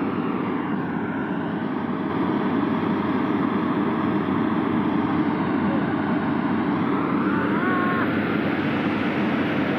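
A 4x4 pickup truck's engine running hard and steadily under load as the truck strains to climb out of deep mud while being pulled by a rope. A short pitched call rises over it about eight seconds in.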